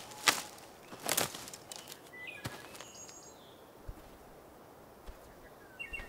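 Footsteps crunching on dry twigs and forest-floor litter, two steps in the first second or so, fading as the walker moves off. A few faint short bird chirps follow a little after the middle.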